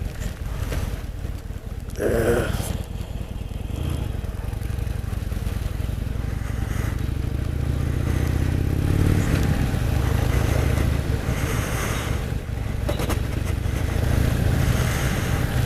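Harley-Davidson Sportster 883's air-cooled V-twin engine running under the rider on the move. Its note rises over a few seconds midway as the bike speeds up, then holds steady.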